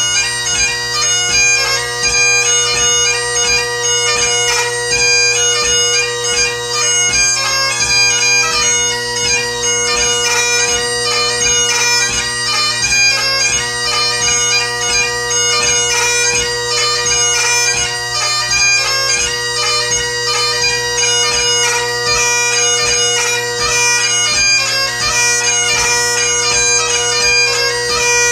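Great Highland bagpipe played solo in a march, strathspey and reel set. The drones hold a steady chord under a chanter melody with quick, ornamented note changes.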